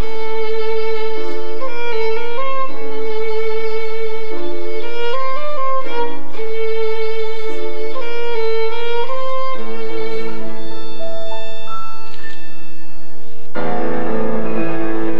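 Violin and piano duo playing live, heard through an amateur camcorder's microphone: the violin carries a melody with vibrato over the piano accompaniment. Near the end the music swells into a fuller, louder passage.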